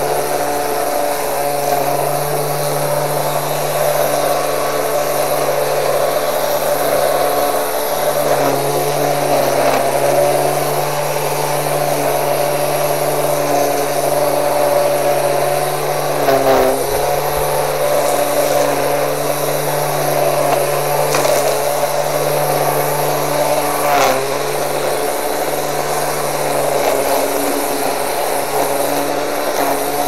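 Black & Decker 18V cordless strimmer running steadily, its motor and spinning nylon line making a constant whirring whine while it cuts weeds between block paving. The note dips briefly three times.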